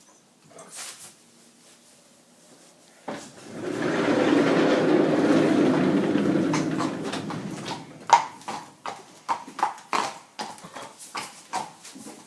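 A horse: a loud rushing noise sets in suddenly about three seconds in and lasts some four seconds before fading, then a quick, irregular run of sharp knocks, two or three a second.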